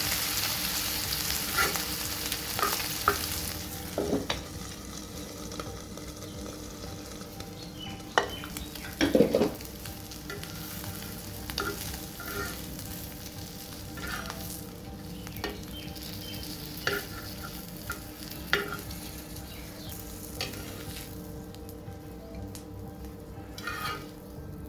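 Food frying in a pan while being stirred with a utensil. A strong sizzle dies down after about three seconds, and irregular scrapes and knocks of the utensil against the pan carry on, the loudest a little past a third of the way in.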